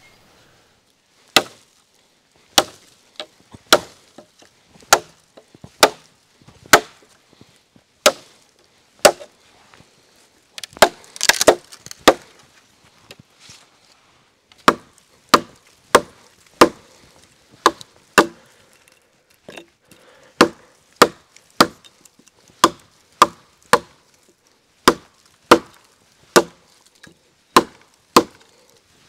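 Beavercraft AX1 hatchet chopping into a fallen log: sharp single strikes about one a second, a short break partway through, then quicker strikes, about three every two seconds.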